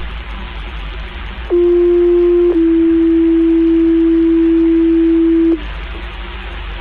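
Two-tone sequential paging tones over a fire dispatch radio channel: a steady tone for about a second, then a slightly lower tone held for about three seconds, over the channel's hiss. These are the alert tones that set off a fire station's pagers ahead of a voice page.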